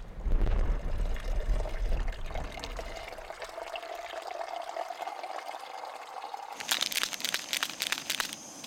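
A low rumble at first, then liquid poured into a cup or pot, the pitch of the pour rising steadily as it fills. Near the end comes a short burst of crinkling from a foil sachet being handled.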